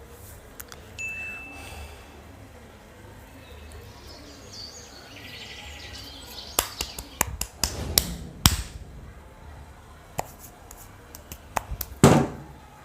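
Several sharp clicks and knocks bunched together about six to eight seconds in, then one louder knock near the end.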